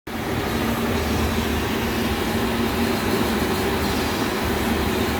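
Steady rumble of a moving vehicle, with a low, even hum beneath the road noise.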